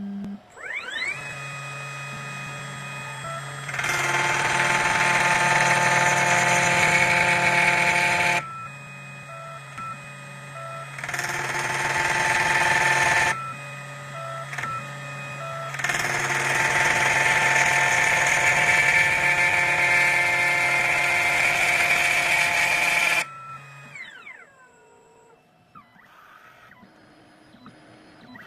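2M2 Tank CNC key cutting machine cutting a Mul-T-Lock key blank. The spindle motor spins up with a rising whine about a second in, and the cutter mills the blank in three loud passes with quieter pauses between them. The motor winds down with a falling whine near the end.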